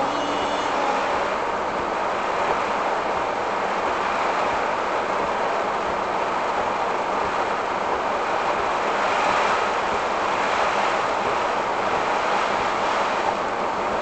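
Typhoon wind and rain buffeting a stopped car, heard from inside through the dashcam: a steady rushing noise that swells with a gust about two-thirds of the way through.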